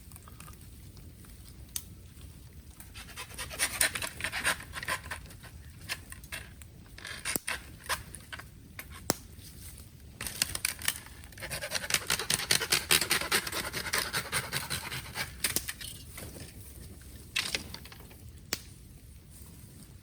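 Bamboo bonfire crackling with scattered sharp pops. There are stretches of breathy hissing, the longest lasting about four seconds around the middle.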